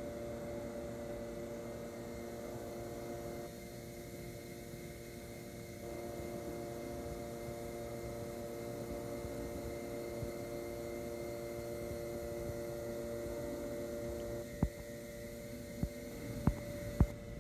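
Steady electrical hum of a subway station, several steady tones held without change. A few short sharp clicks come near the end.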